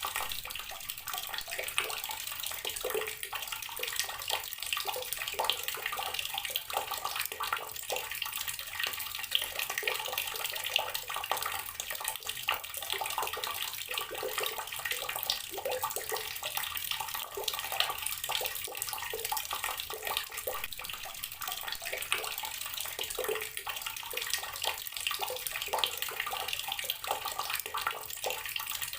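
Water running from an outdoor garden tap, splashing steadily with a dense patter of small drops.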